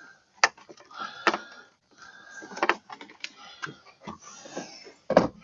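Sharp plastic clicks and knocks, about half a dozen in irregular succession, from trim clips and parts being worked loose on a car door. The heaviest knock comes near the end.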